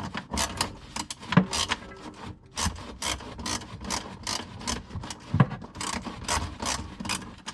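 Rhythmic rasping strokes, about three a second, of a hand tool scraping or cutting.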